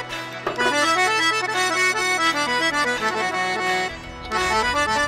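Instrumental music: a quick, stepping melody on a reedy, accordion-like instrument. The bass drops out and comes back in about four seconds in.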